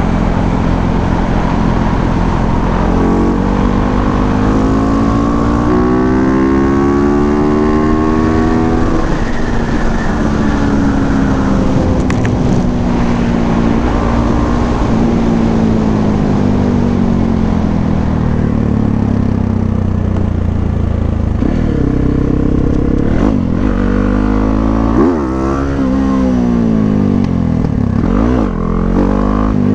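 Motorcycle engine under way, its pitch climbing as it accelerates and dropping as it eases off, several times over, with quick rises and falls near the end.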